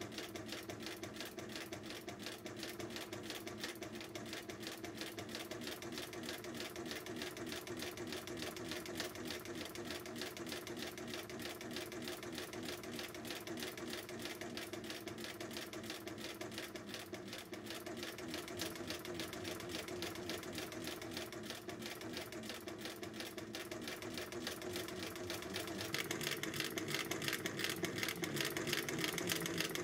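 A freshly restored 1884 Singer sewing machine stitching fabric, turned by hand at its handwheel. It makes a rapid, even mechanical clatter of needle and feed, louder in the last few seconds.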